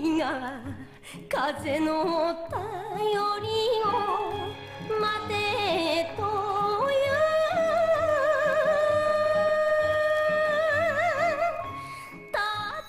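A woman sings an enka song with heavy vibrato over quiet instrumental backing: the line 「風の便りを待てと言う」, ending in one long wavering note of about four seconds. The voice drops away briefly near the end before the next phrase begins.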